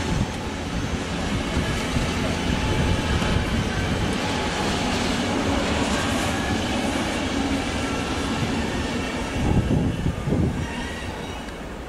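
A passenger train's coaches rolling past on the tracks, wheels running over the rails with a clattering rumble. There is a louder rough stretch near the end as the last coach goes by, and then the sound drops away.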